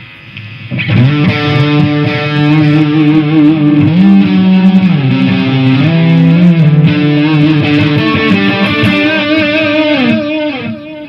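Electric guitar played through a Lekato Tank G multi-effects pedal set to an overdriven Marshall-style amp model with tape delay and a light noise gate: a distorted riff of held notes and chords. It starts about a second in, and the last notes waver with vibrato before it stops near the end.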